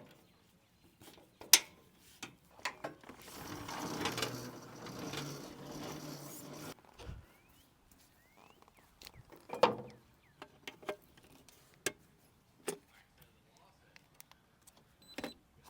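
Scattered clicks and knocks of hand work on metal equipment fittings. About three seconds in there is a few seconds of steady noise with a low hum, which stops suddenly.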